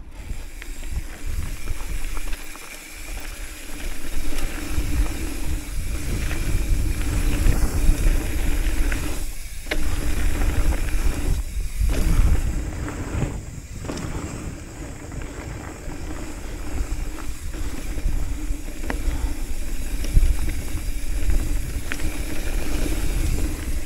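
Hardtail mountain bike rolling fast down a dirt and gravel trail: tyre roar and bike rattle under steady wind rush on the camera's microphone, with a few sharp knocks from bumps.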